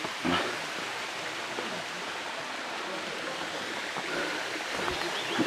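Waterfall's water rushing steadily, with faint voices in the background.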